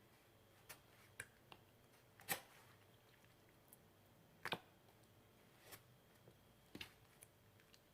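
Green slime being drawn in and pressed: a quiet room with about eight scattered soft clicks and small sticky pops, the loudest about two seconds in.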